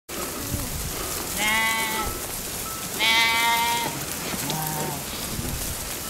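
A flock of sheep on the move, bleating: two loud bleats about a second and a half in and at three seconds, and a fainter, lower one near five seconds. Under them runs a steady shuffling patter of many hooves and brushing fleeces.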